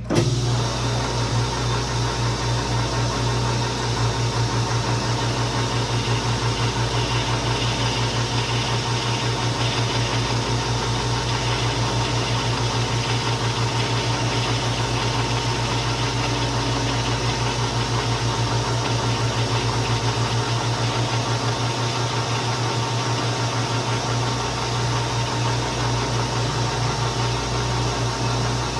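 South Bend 16-inch swing lathe running steadily, with a low fast-pulsing hum under a hiss, while taking a light turning cut on a small bushing. The sound starts abruptly.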